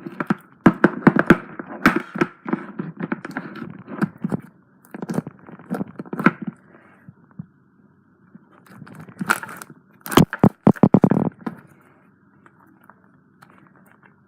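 Slime being squished and stretched in the hands, giving clusters of quick crackly clicks and pops, with quieter pauses between.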